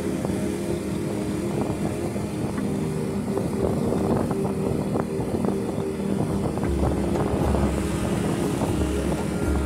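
A motorcycle engine runs with road and wind noise while riding, heard from on the bike. From about seven seconds in, a low pulsing thump joins in.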